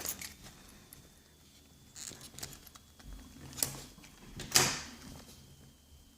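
A small leather pouch and its straps being handled: soft rustling with two sharp clicks, the louder one about four and a half seconds in.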